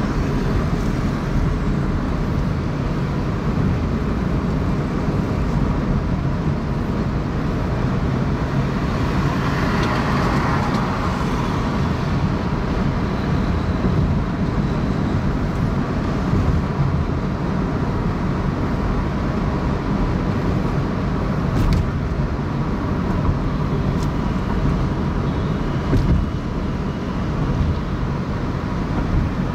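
Car driving through city traffic: steady engine and tyre noise with a low rumble, swelling briefly about ten seconds in, with a few short ticks later on.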